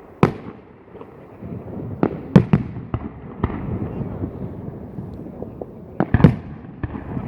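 Fireworks display: aerial shells bursting in sharp bangs, a quick cluster about two seconds in and another about six seconds in, with rumbling echoes between the bursts.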